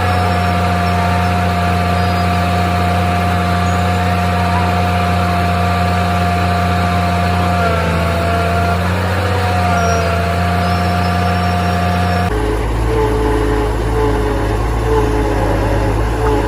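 Factory machinery running: a steady low hum with a high whine that dips briefly in pitch twice. About 12 seconds in, it cuts abruptly to a different machine sound with a deeper hum.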